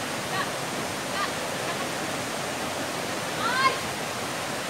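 Steady rush of falling or fast-flowing water. A short rising call, voice-like, sounds over it about three and a half seconds in.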